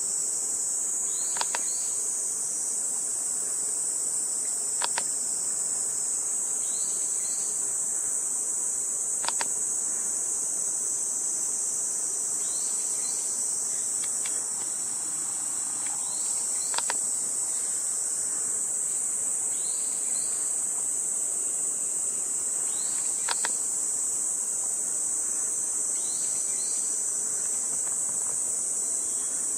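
Steady high-pitched buzzing of a summer insect chorus, with a few faint sharp clicks every few seconds.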